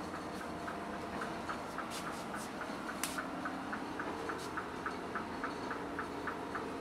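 A steady, even ticking at about four ticks a second, with a few sharper clicks about two and three seconds in.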